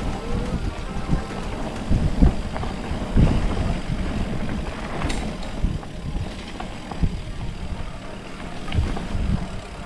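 Mountain bike riding down a dirt downhill trail: steady low rumble of tyres over the ground, with irregular knocks and thumps as it goes over bumps.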